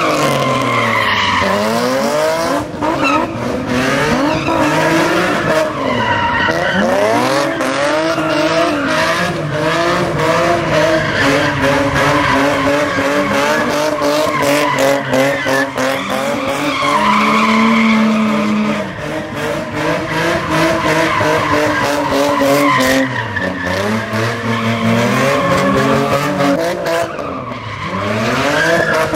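A car spinning donuts: its engine revs up and falls back over and over while the tyres squeal and skid on the pavement.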